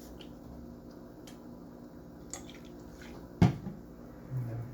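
Handling noise as a cloth is wetted with rubbing alcohol from a bottle: a few faint clicks and one sharp knock about three and a half seconds in.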